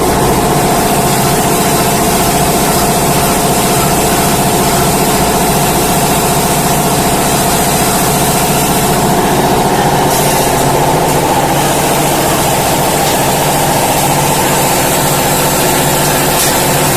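High-speed band saw cutting machine running: a loud, steady mechanical hum with a held whine.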